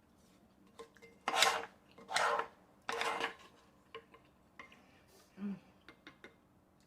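Eating utensils scraping against a dish three times in quick succession, followed by a few lighter clicks and taps.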